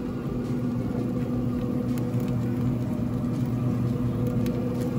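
Pit Boss pellet grill's fan running with a steady hum, with a few faint ticks.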